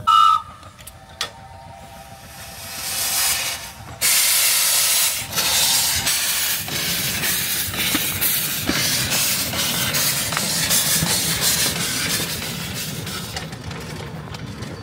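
Half-scale Tom Thumb replica steam locomotive hissing steam as it gets under way. A loud, steady hiss starts suddenly about four seconds in, with scattered clicks and clanks as it moves off, and it fades as the engine goes away.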